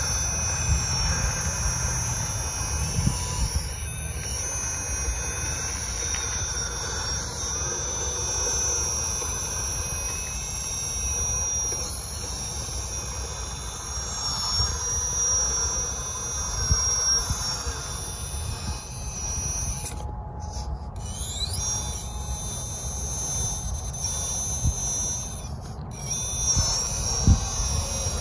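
Drive motor and gearbox of a radio-controlled Magirus Deutz 6x6 scale trial truck whining at a high pitch as it drives the course, over a low uneven rumble.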